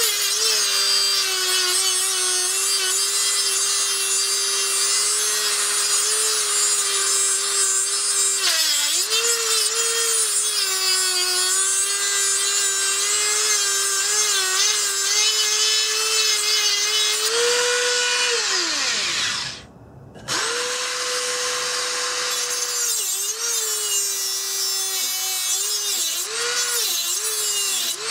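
Dremel rotary tool with a cutoff wheel grinding through a rusted exhaust flange bolt: a high-pitched whine that sags in pitch while the wheel bites into the metal. About 18 s in it spins down and stops, then starts up again a second later and carries on cutting.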